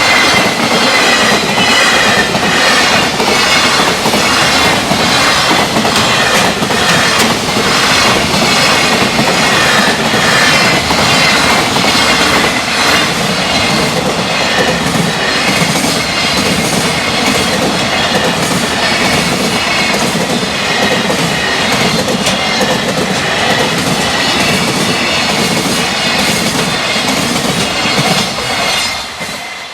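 Freight train passing at high speed, its wheels clattering over the rail joints in a steady repeating rhythm over a continuous rumble. The noise falls away near the end as the train goes by.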